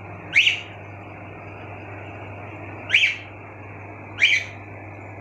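Cockatiel giving three short rising chirps, a few seconds apart, over a steady low hum.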